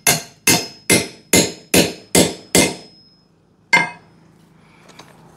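A hammer striking a rivet-setting tool on a copper rivet and burr in leather over a steel bar, driving the copper burr down onto the rivet shank. Seven quick metallic blows come about every half second, with a short high ring after them, then one more blow after a pause near four seconds in.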